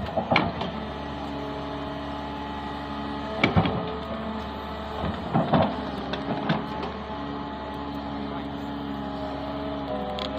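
Caterpillar 320D hydraulic excavator working: its diesel engine and hydraulics run steadily, with humming tones that shift in pitch a few times as the arm and bucket move. Several clanks and scrapes of the steel bucket digging into soil and roots, the loudest about three and a half and five and a half seconds in.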